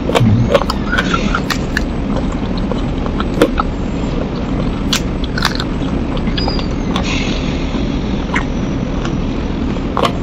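Close-up eating sounds of a person tearing apart and chewing spicy chicken feet: scattered short wet clicks and smacks over a steady background rumble and hiss.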